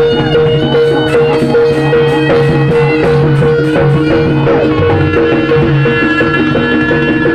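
Live Javanese gamelan music accompanying a barongan dance: a steady hand-drum beat under metal percussion, with a long note held throughout.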